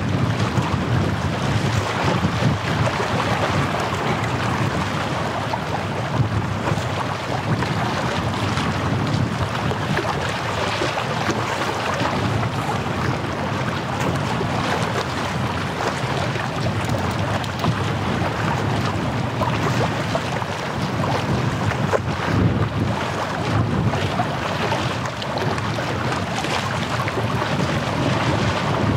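Wind buffeting the microphone over the steady wash of small waves on the bay shore.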